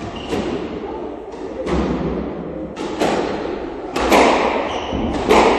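Squash ball being hit back and forth in a rally. Sharp cracks of racket hits and the ball striking the walls come about a second apart, echoing off the court's walls, and are loudest near the end.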